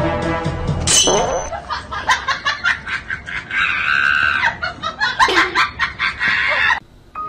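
Background music that breaks off about a second in, then a person laughing in quick rapid pulses with a drawn-out high squeal in the middle. The laughter cuts off abruptly near the end.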